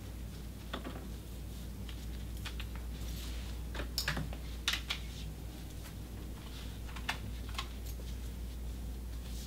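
Scattered light clicks and knocks as a metal door lever handle and the door are wiped down by hand with a cloth, with a cluster of louder knocks about four to five seconds in, over a steady low hum.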